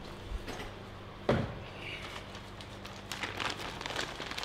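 A single sharp knock about a second in, then plastic bag crinkling and rustling as a lathe chuck is worked out of its bag, over the steady hum of a shop fan.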